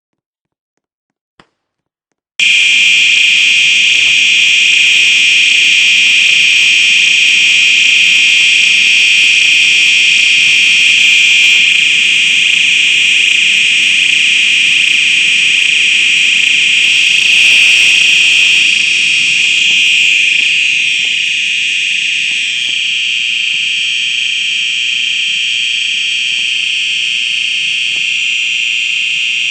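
Fire alarm under test, starting abruptly a couple of seconds in and sounding a loud, continuous high-pitched tone without pauses.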